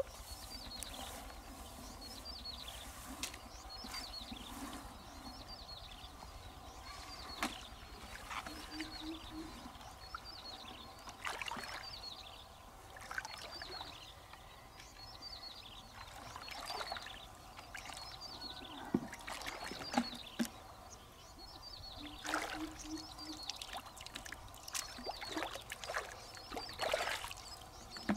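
Irregular water splashes and trickling as a person wades in a shallow pond and dips, fills and pours a plastic bucket.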